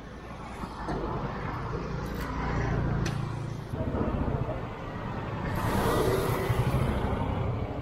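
Motor vehicles driving past close by on a road, their engine noise swelling twice.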